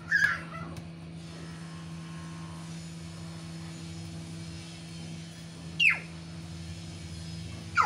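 Two short, sharp puppy yelps, each falling quickly in pitch, about six seconds in and at the very end, over a steady low hum.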